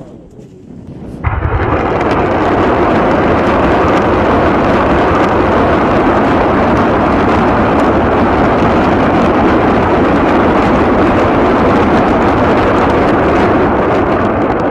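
A battery of truck-mounted multiple rocket launchers ripple-firing a salvo. About a second in, a loud, continuous noise of rockets launching in quick succession starts suddenly, with many sharp cracks running through it.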